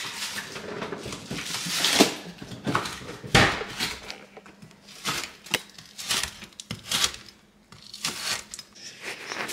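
Chef's knife chopping frozen spring onions on a plastic cutting board: irregular sharp knocks, some in quick runs of two or three.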